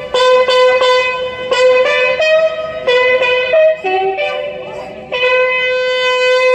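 Ceremonial fanfare on brass or wind instruments, played for a dignitary's arrival. Short repeated notes come first, then a few changing notes, then one long held note from about five seconds in.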